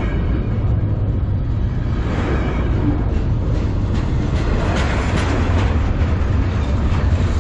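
Double-stack intermodal well cars of a freight train rolling past at close range: a loud, steady rumble of steel wheels on the rails, with light repeated clicks and clatter from the wheels and cars.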